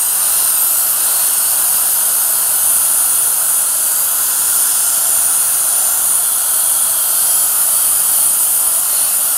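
Die grinder spinning a Scotch-Brite pad against the seal bore of a cutter pump's back plate, running steadily with a high hiss as it cleans built-up deposits off the bore before a new mechanical seal goes in.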